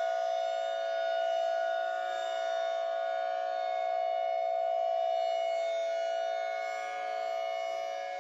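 Civil defense siren reworked with audio effects, holding one steady pitch with many overtones and slowly swelling and fading in loudness.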